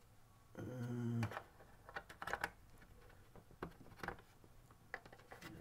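Faint scattered clicks and taps of plastic as a plastic spudger pries at the snap clips of a TiVo Edge's case. A short low hum of a voice comes about half a second in.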